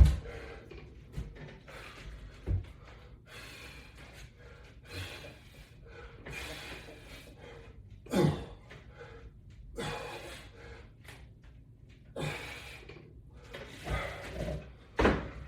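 A man breathing hard through exercise reps, a loud breath or gasp about every second and a half, with a few dull thumps from the bench and equipment.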